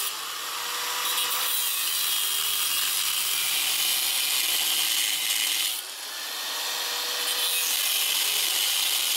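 Angle grinder with a cut-off disc slicing into a solid steel block held in a vise: a steady, high grinding hiss over a faint motor whine. It eases off briefly about six seconds in, then bites into the steel again.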